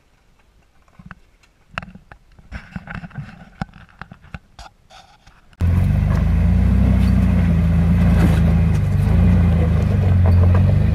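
Light clicks and scrapes of tyres crawling over loose rock, then about halfway through a Jeep Wrangler's engine comes in suddenly, loud and steady under load as it climbs a rock ledge, its pitch rising and falling a little.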